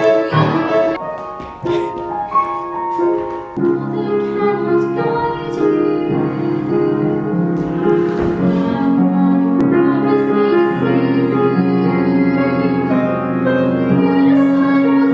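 A female voice singing a show tune with piano accompaniment; the piano fills in with fuller, sustained chords about three and a half seconds in.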